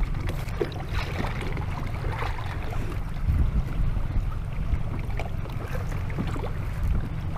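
Wind buffeting the microphone in a steady low rumble, with water splashing around the boat and faint scattered ticks.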